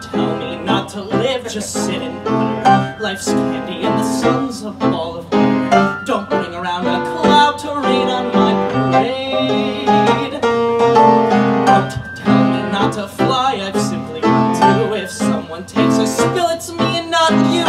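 A young man singing a Broadway show tune at full voice into a microphone, over a musical accompaniment with sustained chords.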